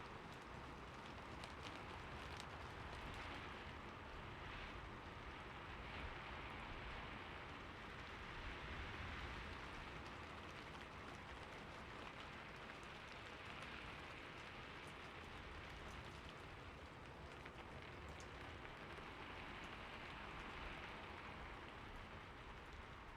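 Steady rain falling, a soft even hiss that swells and eases slowly, with scattered individual drop ticks. No thunder is heard.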